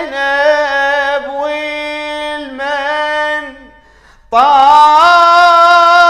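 A male radood sings a Shia lament solo, drawing out each word in long, wavering melismatic notes. He breaks for breath about two-thirds of the way through, then comes back louder on a high held note.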